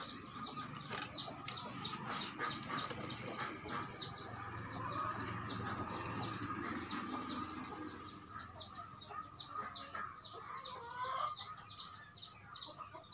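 Birds chirping, a quick run of short, high, falling calls repeated several times a second.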